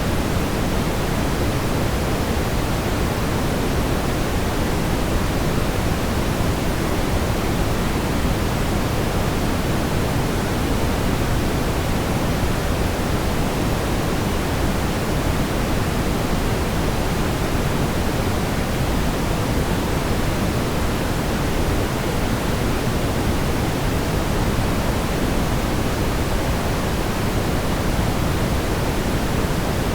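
Steady, smoothed brown noise: a deep, even hiss, strongest in the low end and fading toward the top.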